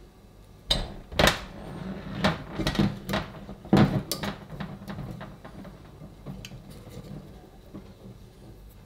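Handling noise as a rubber O-ring is worked onto the end of a detached chrome kitchen tap spout over a stainless steel sink: a quick run of sharp knocks and clatters about a second in, lasting a few seconds, then a few faint clicks.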